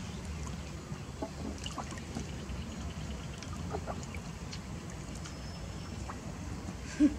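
Water lapping and small splashes in an inflatable paddling pool as baby monkeys swim and wade in it, with a brief louder sound near the end.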